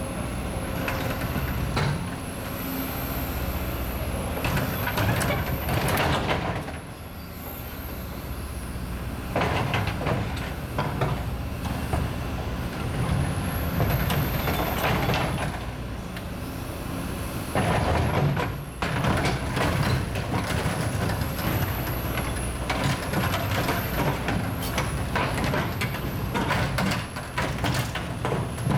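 Sumitomo SH240 hydraulic excavator running under load as its demolition grapple tears apart a subway car body. A steady engine rumble is broken by repeated loud bursts of metal crunching and scraping, and a high whine rises and falls over and over.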